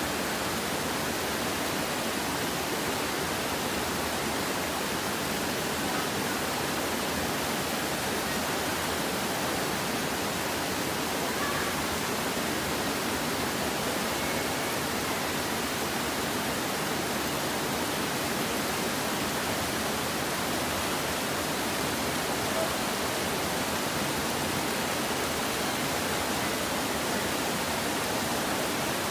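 Shallow rocky river rushing steadily through rapids and small cascades of white water.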